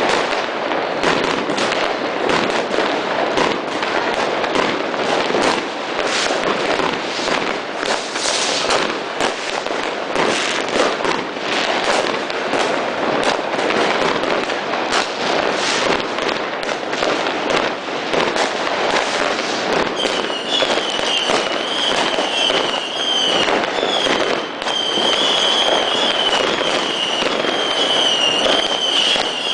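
New Year's Eve fireworks: a dense, continuous crackle of firecrackers and bangs, many going off at once. About two-thirds through, a high wavering whistle joins in and carries on over the bangs.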